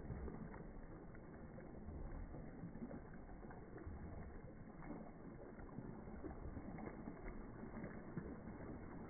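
Pool water sloshing and lapping, with small splashes from a dog swimming.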